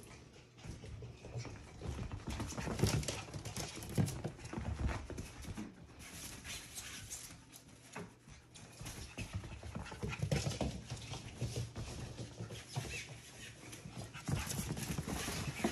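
Young Portidoodle (Portuguese Water Dog × Poodle) puppies playing together: irregular scuffling and tapping of small paws on the floor and mat, mixed with small puppy vocal sounds.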